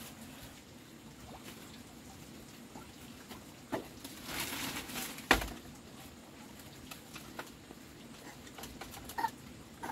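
Handling and footstep noises: a plastic bag rustling for about a second, then a single sharp knock a little after five seconds in, with a few lighter clicks around it.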